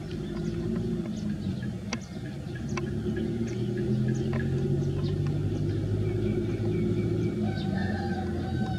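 A motor engine running steadily with a low hum, the loudest sound throughout, with scattered short sharp ticks over it; a higher steady tone joins in near the end.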